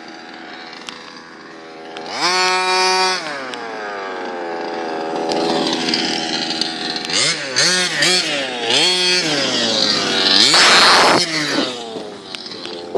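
Two-stroke gas engine of a King Motor Baja T5 1/5-scale RC truck, revving up in short throttle bursts and dropping back between them, with a loud rush of noise about ten seconds in.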